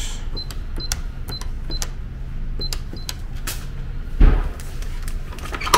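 Electronic keypad door lock beeping as a code is keyed in: about six short high beeps, one per key press, with light key clicks. A thud about four seconds in and a sharp click near the end.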